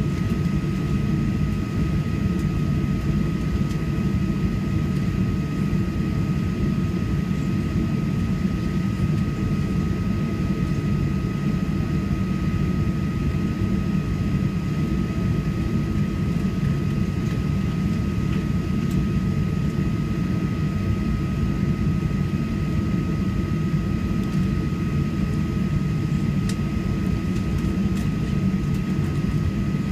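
Steady drone inside the cabin of a Boeing 737-800 on the ground, its CFM56 jet engines at idle and the cabin air running, with a thin steady whine over the low rumble.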